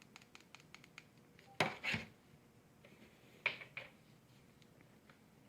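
Scattered light clicks, then two pairs of louder clatters, the first about a second and a half in and the second about three and a half seconds in, like small hard objects being handled.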